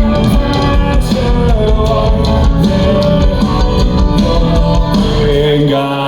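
Live folk-punk rock band playing loud through a festival PA, with drums, guitars and a held melodic line. The low end drops away briefly near the end.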